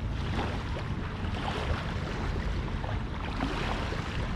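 Wind buffeting the microphone over a steady wash of surf.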